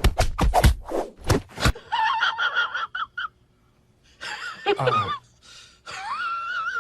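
A cat meowing and yowling in high, drawn-out calls, the last one long and wavering. These follow about a second and a half of rapid rustling noises.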